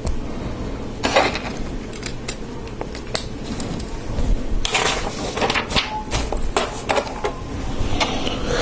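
Plastic Lego Technic pieces clattering and clicking as they are picked through and handled, with scattered sharp clicks and a few short rustling bursts.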